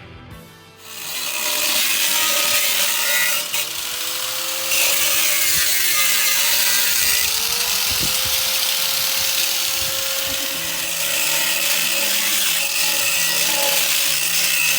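Power tool cutting into the front bumper of a 1994 Ford F-150, starting about a second in: a steady harsh hiss over a motor tone that sags and picks back up a couple of times as the cut loads it.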